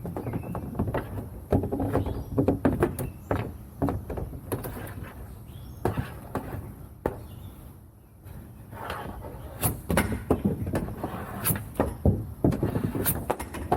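Hockey stick blade and puck clacking on plastic shooting tiles: a quick, irregular string of taps, with a few sharper cracks near the end.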